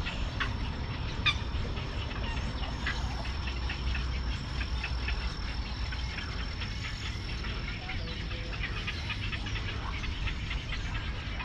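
Chorus of a nesting egret and heron colony: many short, overlapping croaks and squawks that never let up, with a thin steady high tone behind them.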